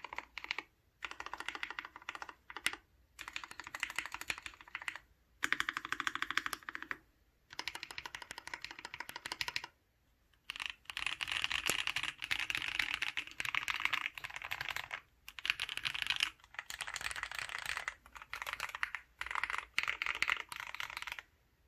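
Typing on an Archon FX mechanical keyboard with 'paco' switches (NovelKeys Cream housings with Halo stems, lubed), a stainless steel plate and GMK keycaps: rapid keystroke clacks in bursts of one to a few seconds, with short pauses between.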